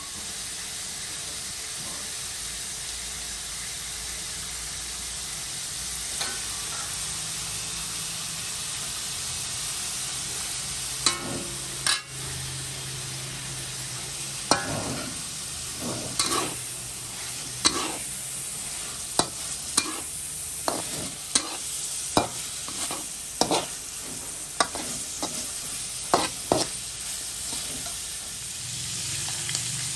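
Sliced meat sizzling as it stir-fries in a metal wok. From about eleven seconds in, a metal spatula knocks and scrapes against the wok about once a second as it turns the meat.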